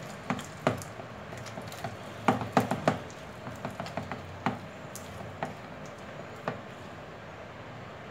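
A hand squishing and beating a thick flour-and-curd batter in a plastic bowl, mixing in added water. Irregular wet slaps and squelches come in a quick cluster a little over two seconds in, then thin out and stop after about six and a half seconds.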